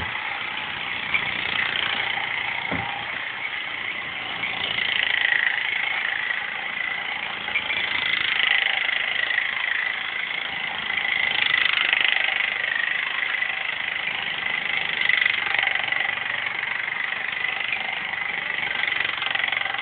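Restored Mamod model steam roller's small live-steam engine running steadily: a continuous hiss and whirr with a thin high tone, swelling and fading slowly.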